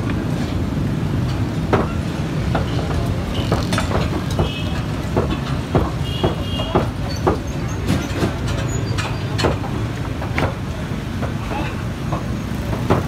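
Busy open-air meat market: a steady low rumble of traffic and crowd, with irregular sharp clicks and knocks from butchers' knives working meat on wooden tables.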